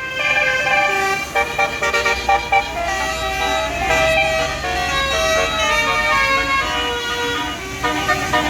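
Tour bus's basuri musical horn playing a tune of quick stepped notes, over the low rumble of the bus's engine.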